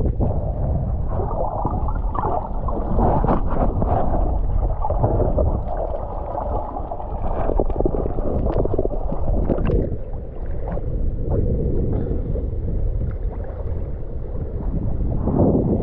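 Muffled water gurgling and sloshing, with scattered small knocks.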